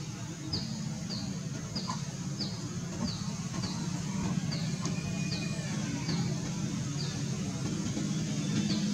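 A bird calling a short, high, falling chirp over and over, roughly one every two-thirds of a second, over a steady low rumble.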